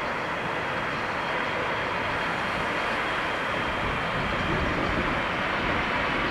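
Boeing 747's four jet engines during the landing roll-out: a steady rush of jet noise that slowly grows louder.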